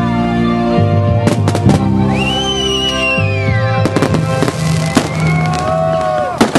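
Fireworks going off in sharp bangs, a quick cluster about a second in and more spread through the rest, over loud music with long held notes. A whistle rises and then slowly falls about two seconds in.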